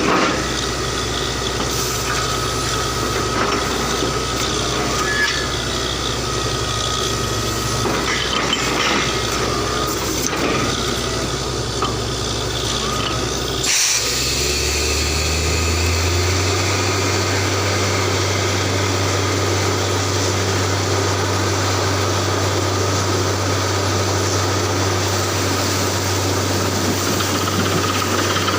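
An engine running steadily. About halfway through there is a click, and its low hum steps up in pitch, then holds steady at the higher speed.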